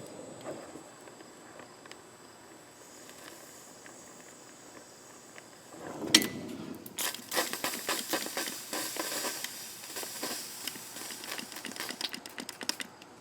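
Oxy-acetylene torch heating a rust-seized exhaust manifold stud: a faint steady hiss, then a sharp click about six seconds in and dense crackling and popping as the rusty metal heats up.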